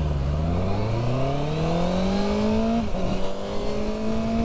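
Honda CB650R inline-four with an IXIL Hyperlow exhaust, accelerating: the engine note rises steadily, drops sharply once about three seconds in as the quickshifter snaps a clutchless upshift, then climbs again. Wind noise runs underneath.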